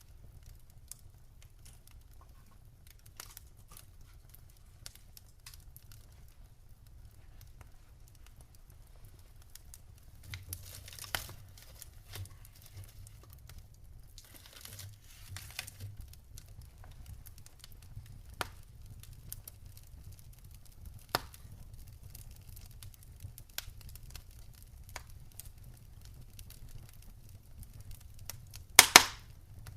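Campfire crackling: sparse snaps and pops over a low steady rumble, with a loud double pop near the end.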